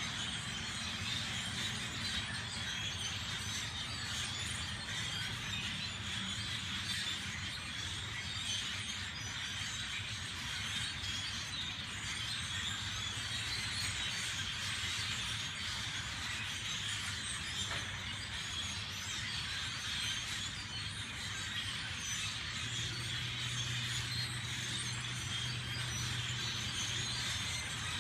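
A large flock of birds calling all at once: a dense, steady, high-pitched chatter of countless overlapping chirps and squeals.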